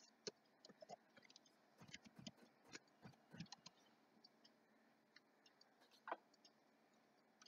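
Near silence with faint computer keyboard typing and mouse clicks, scattered and uneven, with one sharper click about six seconds in.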